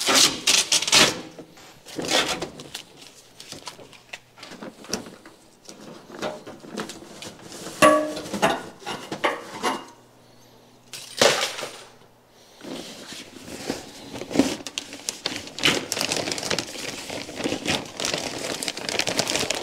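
Parts of a Wen 3403 dust collector being taken apart by hand: scattered knocks, clicks and scrapes of the metal drum and bag clamp, then a steadier rustle in the second half as the cloth filter bag is pulled away from the drum.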